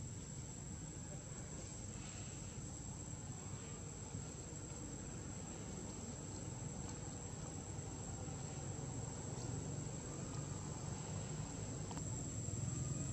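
Insects, crickets or cicadas, keeping up a steady high-pitched buzz without a break, over a low background rumble that grows a little louder near the end.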